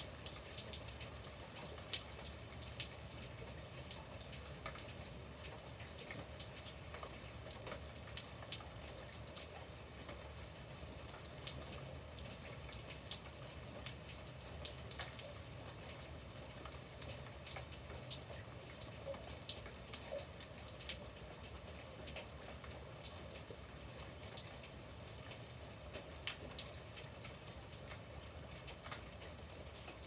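Steady rain falling on a paved garden path and leafy plants, with many separate drops tapping sharply through an even wash of rain noise.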